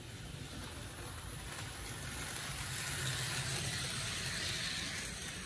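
HO scale model train running on sectional track: a steady whir and rattle of wheels and motor that grows louder as the train comes close, about three seconds in.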